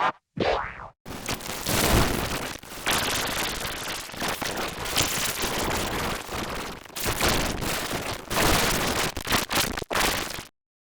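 Harsh, dense crackling noise of heavily distorted, effects-processed audio, with a few brief dropouts, cutting off suddenly near the end.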